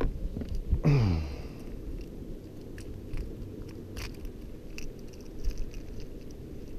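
Small drum fish croaking while held out of the water: a low grunt falling in pitch about a second in, then a steady low purring rumble, with scattered clicks of handling.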